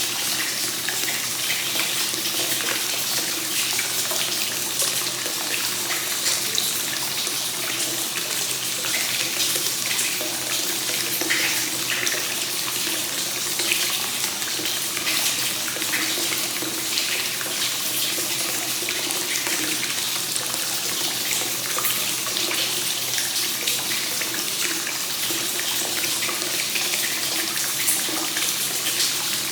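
Hot spring water flowing continuously into a bath from its source inlet, a steady even splashing and trickling without pause.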